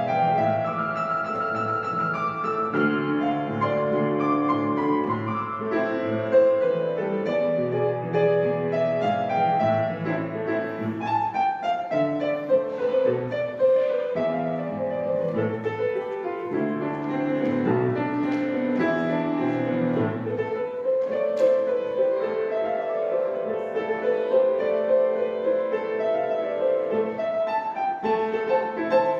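A grand piano played solo, a melody over low bass notes with falling runs. About two-thirds of the way through, the bass notes stop and the melody goes on alone.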